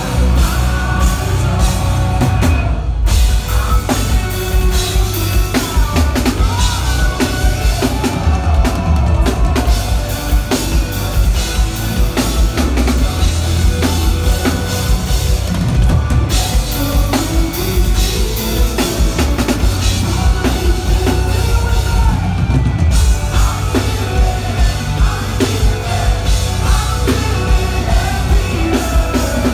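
Rock band playing live, with a loud drum kit driving a steady beat, recorded from the crowd on a phone.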